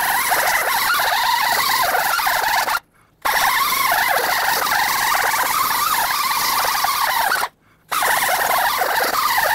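Air-powered sander with a sanding disc grinding the wheel-mounting surface of a truck's rear hub clean, running steadily and stopping briefly twice, about three seconds in and again near the end.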